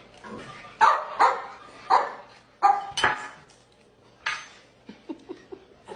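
A dog barking: about six short, sharp barks at uneven intervals over the first four seconds or so, then a few faint softer sounds near the end.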